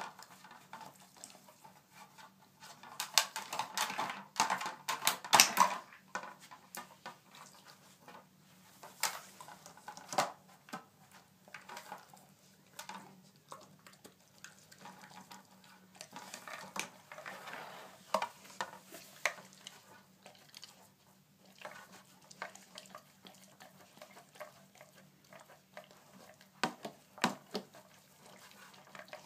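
Dog's nose and paws knocking and shifting the top of a round treat-puzzle board: irregular clacks and scrapes of hard parts, busiest for a few seconds near the start and in short flurries later.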